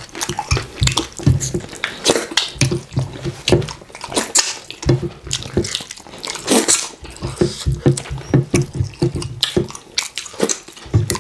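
Close-up wet eating sounds from two people: chewing, lip smacking and slurping as they eat fufu and slimy okra soup with chicken by hand, an irregular run of short wet clicks with one longer, louder slurp about six and a half seconds in.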